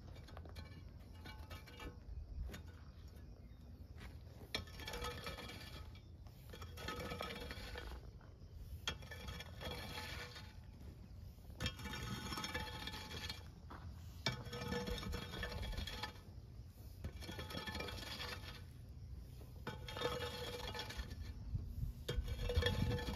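Long-handled hoe's metal blade dragged across bare, stony dirt in repeated strokes, about one every two seconds, each scrape lasting around a second.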